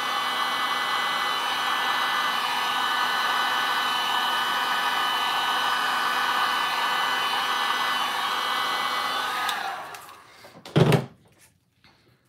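Electric heat gun blowing hot air over a fresh epoxy resin pour: a steady rush of air with a motor whine. It is switched off about ten seconds in and winds down, and a single loud thump follows about a second later.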